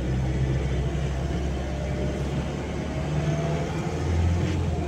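Engine and road noise of a vehicle driving slowly, heard from inside its cabin: a low steady drone that rises a little in pitch and gets louder about four seconds in.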